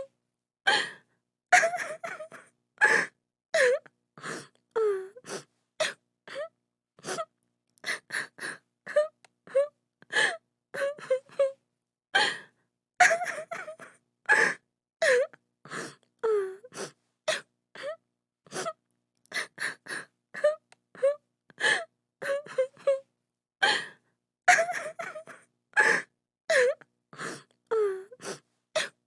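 A woman crying: a rapid string of short gasping sobs and wails, many falling in pitch, about two a second, each separated by dead silence.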